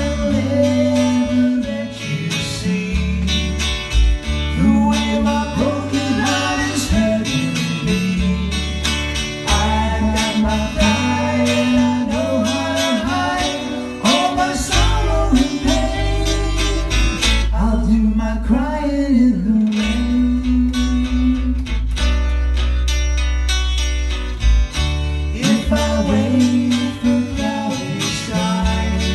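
Live band music: electric guitar and bass guitar playing together, with sustained bass notes under a wavering melody line.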